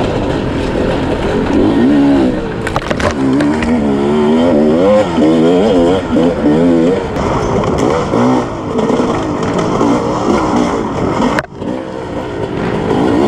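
Sherco 300 SE-R two-stroke dirt bike engine revving up and down under load as it is ridden hard over rough ground, with a few knocks about three seconds in. Near the end the engine sound dips out sharply for a moment, then picks up again.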